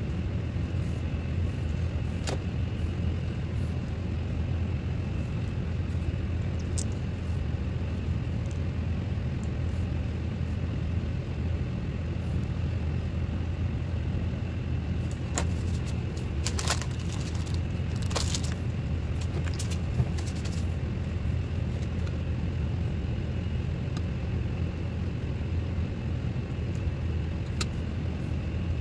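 Steady low hum of running machinery, with scattered light clicks and taps from handling a plastic syringe and luer lock fitting, a cluster of them in the middle.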